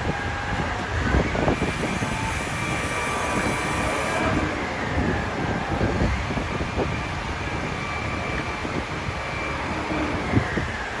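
A distant siren wailing, its pitch slowly rising, holding and falling twice. Underneath is a steady rush of strong wind and street noise.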